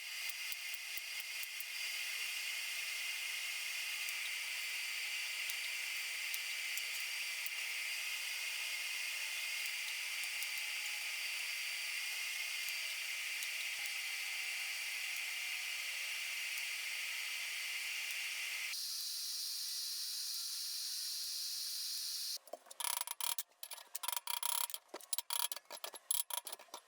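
A drill running steadily as holes are bored in steel, a hissing whir with a faint whine. About three-quarters of the way through the sound cuts abruptly, followed by a run of rapid, irregular clicks and ticks.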